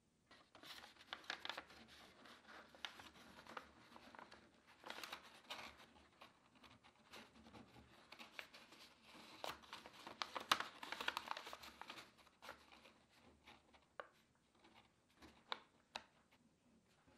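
Sheet of paper crinkling and rustling as it is wrapped tightly around a filler-neck tube and held in place, with small taps and clicks from handling. It is busiest near the start and again past the middle, thinning to a few sharp clicks near the end.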